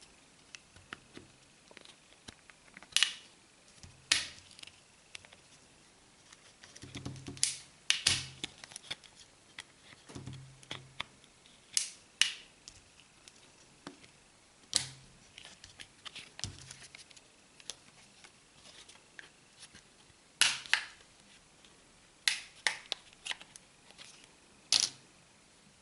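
A phone's plastic back cover being pried off by hand: irregular sharp clicks and snaps every second or two as its retaining clips work loose.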